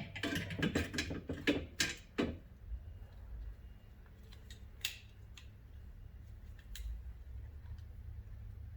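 Metal clicks and rattles of a refrigerator drawer's spring-loaded tilt hinge being worked by hand, a quick clatter in the first two seconds, then a few single sharp clicks, over a low steady hum.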